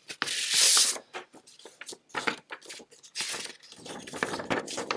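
A folded sheet of thick paper being opened and unfolded by hand. There is a loud paper rustle in the first second, then lighter, irregular crinkling and rustling.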